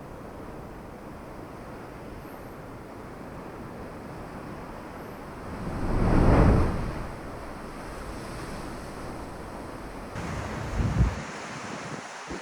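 Sea waves washing in below sea cliffs at a blowhole, with wind buffeting the microphone. About six seconds in, one wave surges in loudly for a second or so.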